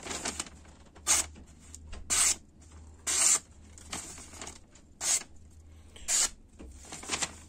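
Freshly sharpened Yakut knife slicing through a sheet of paper in five short cuts about a second apart, testing the edge's sharpness.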